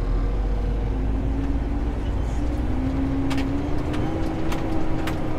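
Tractor engine running steadily while pulling a seed drill across the field: a continuous drone whose pitch rises slightly midway through, with a few faint clicks.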